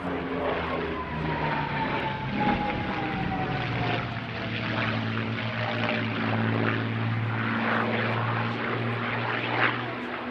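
North American P-51 Mustang's Merlin V12 engine running on a display pass. A high tone falls slowly in pitch over the first six seconds as the plane goes by, over a steady low engine note.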